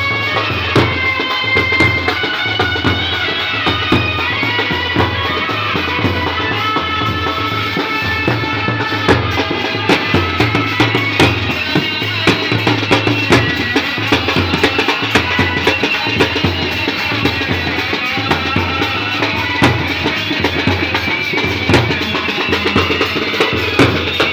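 Indian wedding band playing: bass drum and snare drums beaten in a steady, busy rhythm under a sustained, wavering melody line.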